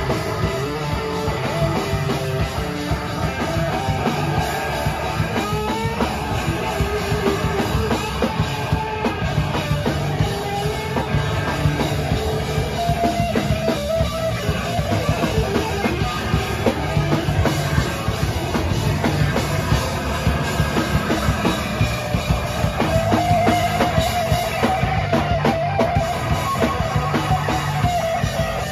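Rock band playing live: a drum kit keeps up a dense, driving beat under electric guitar, with no pause in the music.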